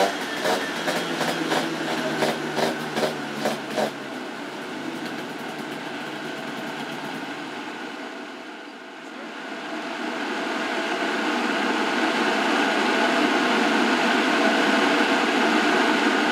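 Tuned Aprilia SR 125 two-stroke engine with a Malossi 172 cc kit and TMR exhaust running on a roller dyno: for the first few seconds it pulses about twice a second. It then settles into a full-throttle power run that grows steadily louder at a fairly steady engine pitch.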